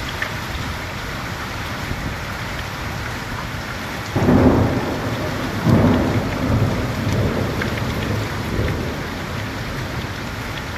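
Steady heavy rain with a clap of thunder about four seconds in, surging again a moment later and rolling away over several seconds.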